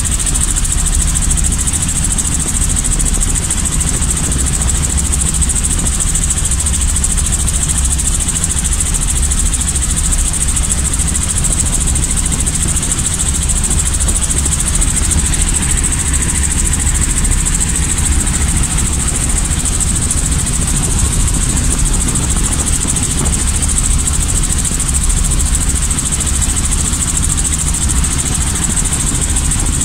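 Small piston-engined helicopter running steadily: a constant low engine and rotor drone with a steady high-pitched hiss on top.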